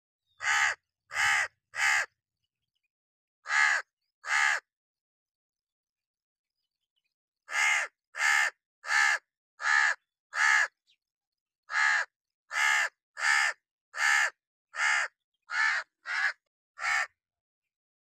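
Crow cawing: eighteen harsh caws, first in groups of three and two, then in runs of five and eight, spaced a little under a second apart.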